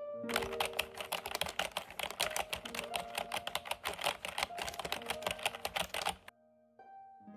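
Typing sound effect: a rapid, unbroken run of key clicks that stops about six seconds in, over a few soft held tones.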